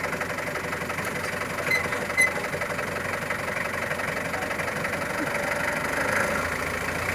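Forklift engine idling steadily, with two short sharp clinks about two seconds in.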